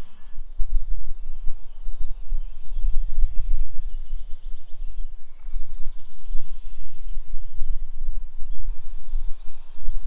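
Gusty wind rumbling on the microphone, with faint songbird calls in the background.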